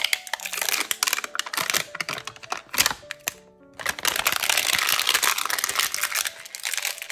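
Crinkly toy packaging being torn and rustled open by hand, a dense crackle with a brief pause midway, over background music.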